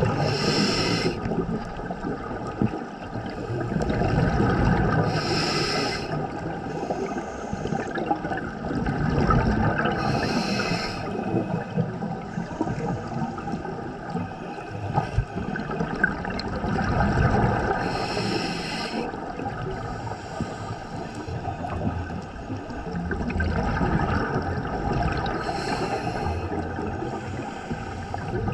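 A scuba diver breathing through a regulator underwater. A hiss lasting about a second comes every five to eight seconds, with a low, swelling rush of bubbles between the hisses.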